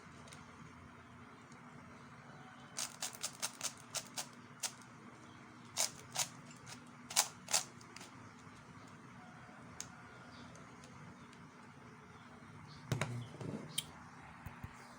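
Plastic clicks and clacks from a YJ Fisher puzzle cube being handled and turned, coming in irregular groups of sharp clicks.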